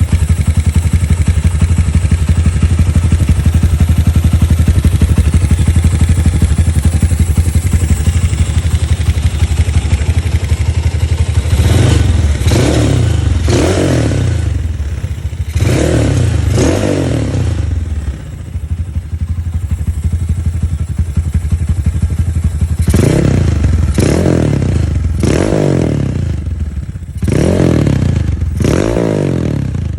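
Honda Mega Pro single-cylinder motorcycle engine running through a gutted GL100-style aftermarket muffler. It idles loudly and steadily at first, then from about twelve seconds in is given repeated quick throttle blips, each rev rising and falling, with a pause of a few seconds in the middle.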